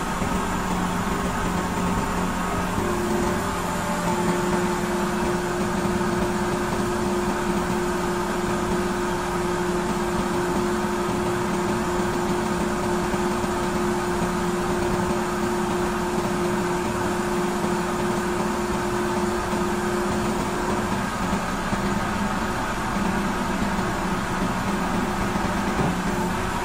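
Grove TM1500 truck crane's diesel engine running steadily. A steady hydraulic whine sets in about three seconds in and stops about twenty seconds later while the outrigger jacks are worked.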